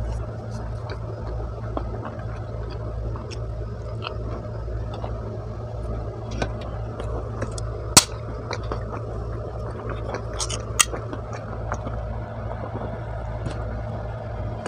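Soft chewing clicks close to the microphone over a steady low hum, then a sharp crack about eight seconds in as an aluminium soda can's tab is pulled open, with a few more clicks near eleven seconds.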